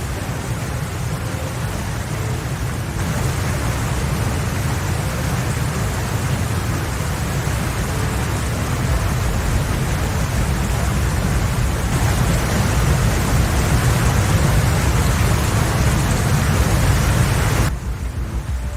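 Steady rushing noise of heavy water, floodwater or downpour, with a strong low rumble; its character shifts about three seconds in and again past the middle, and it drops in level near the end.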